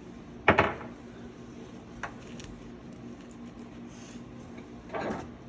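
Metal hand tools knocking and clinking against engine parts: a sharp knock about half a second in, a small click around two seconds, and a longer clatter near the end.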